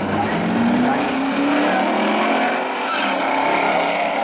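Two stock V8 muscle cars launching side by side off a drag-strip start line and accelerating hard, their engine notes rising in pitch as they pull away.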